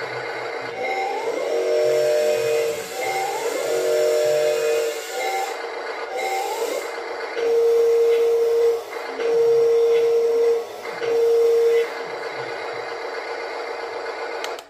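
Small electric motors of a Huina 1583 radio-controlled wheel loader whining in spurts of one to two seconds as the bucket and lift arm are worked, each spurt starting with a short rise in pitch, the last three longer and louder, over a steady hiss.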